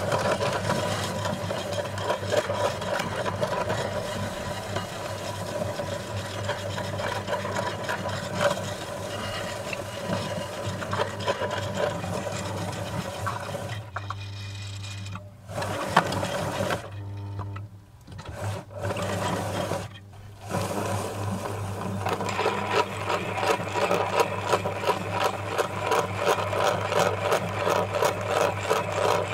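Meat grinder running steadily with a constant hum, crunching hard ring-shaped cookies into crumbs with a rough grinding and crackling. The sound drops away briefly a few times about halfway through, then returns with denser crackling.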